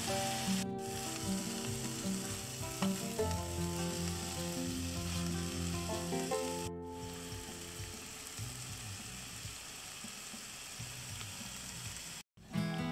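Sliced pork and napa cabbage stir-frying in a nonstick frying pan over a portable gas stove: a steady sizzle while a spoon stirs the food. The sizzle is louder in the first half and breaks off for an instant three times.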